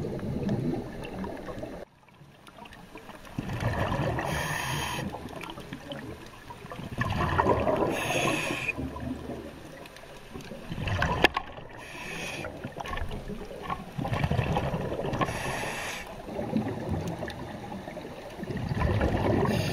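Underwater recording of scuba divers breathing through regulators. Bubbling exhalations swell and fade about every four seconds.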